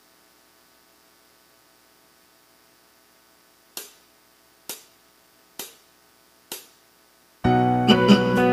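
Four sharp count-in clicks, evenly spaced just under a second apart, then a karaoke backing track starts loudly near the end with electric piano chords.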